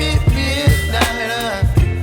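Background pop song: a singing voice over a steady drum beat and bass.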